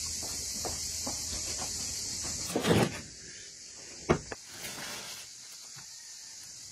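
Soft footsteps on a concrete floor, then a loud scrape and knock about two and a half seconds in. After it come two sharp clicks and a brief hiss as a match is struck to light kindling in a clay pit oven.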